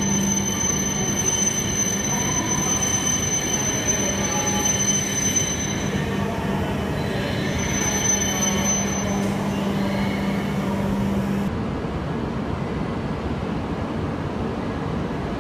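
E5 series Shinkansen train running along the platform past the camera: a steady rolling rumble with a low hum and high-pitched whines, which drop away about 11 to 12 seconds in while the rumble carries on.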